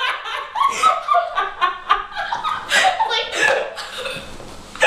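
Young people laughing and snickering in short bursts, mixed with bits of unclear talk; the laughter fades away near the end.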